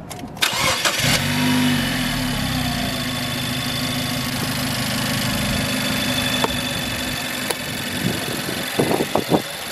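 Nissan Juke's 1.6-litre turbocharged four-cylinder, fitted with an HKS dual exhaust, cranking briefly and starting, its revs flaring up about a second in and then settling to a steady idle.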